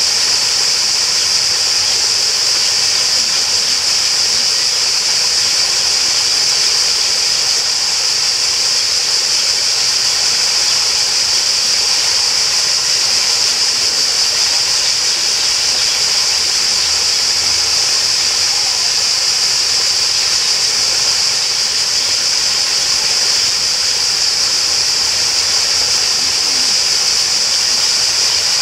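Steady rushing water, with a constant high-pitched hiss over it that does not let up.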